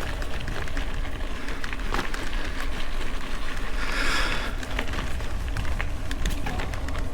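Bicycle rolling over a rough unpaved road: a steady low rumble from the tyres with scattered clicks and rattles, and a brief hiss about four seconds in.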